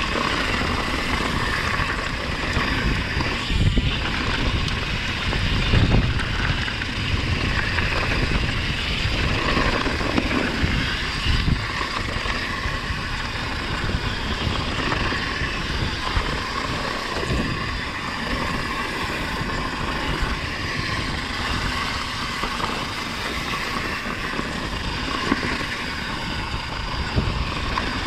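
Wind buffeting the microphone over the rumble and rattle of a mountain bike rolling down a dirt trail, with a few sharp thumps from bumps.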